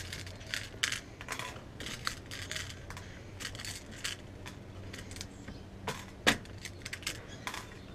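Fingers picking through loose metal fishing hooks in a clear plastic tackle box compartment: irregular small clicks and metallic jingling, the loudest tick a little after six seconds in.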